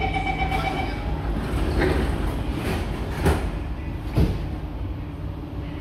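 SMRT C151C train's door-closing warning tone sounds for about the first second. The sliding doors then shut with a thump about three seconds in and a second thump about a second later. A steady low hum of the stationary train runs underneath.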